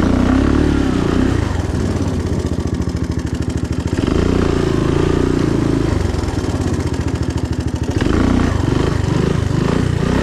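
Three-wheeler ATV engine running under the rider, revved up three times at roughly four-second intervals.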